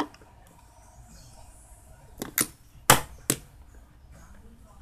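Sharp metal clicks and taps from handling a car radiator fan motor and a screwdriver: one click at the start, then four in quick succession about two to three and a half seconds in.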